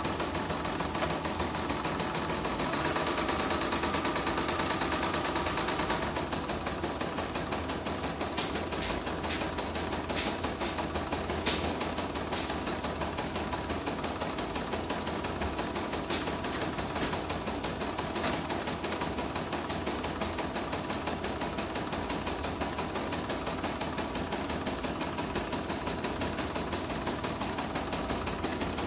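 CNY E900/E960 portable computerized embroidery machine stitching steadily, its needle running in a fast even clatter. A slightly louder stretch with a whine comes a few seconds in, and a single sharp click about eleven seconds in. This is a test stitch-out to check the machine after its rotary hook has been replaced.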